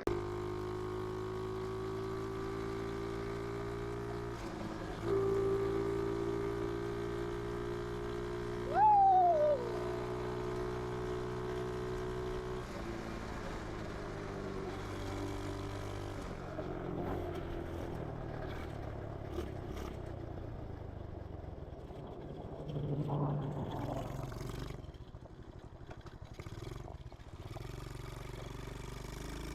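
Small 125cc engine of a homemade reverse trike held at a steady high speed on a top-speed run, stepping up in pitch about five seconds in. A brief loud squeal rises and falls about nine seconds in, and from about thirteen seconds on the engine sound turns uneven and rises and falls.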